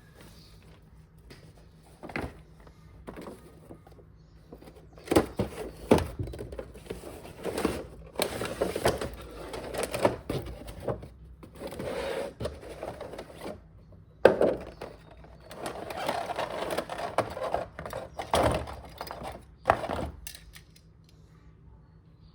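Hands handling a diecast model car and its packaging: a string of knocks and clicks, with stretches of rustling or scraping packaging.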